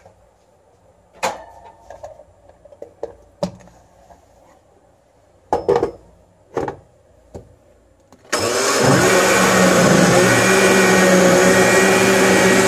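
A few knocks and clicks as the glass blender jar is handled and fitted onto its base, then, about two-thirds of the way in, a Hamilton Beach countertop blender switches on and runs steadily, blending a liquid mixture.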